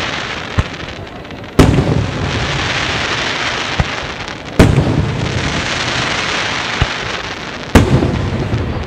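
Aerial firework shells bursting three times, about three seconds apart, each sharp boom followed by a long hiss as the golden trailing stars burn out. A fainter sharp pop follows each boom about two seconds later.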